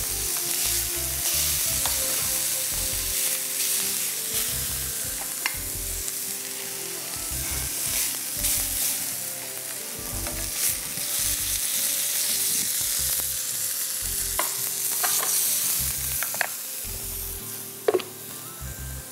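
Food sizzling and frying in a hot pan while it is stirred, with a few sharp utensil clinks near the end.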